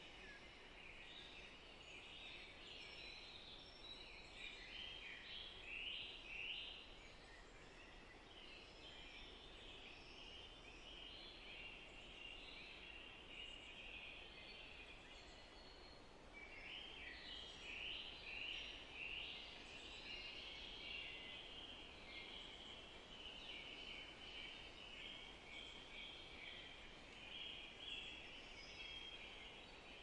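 Faint chorus of many small birds chirping and twittering over one another, busier around five seconds in and again from about seventeen to twenty seconds.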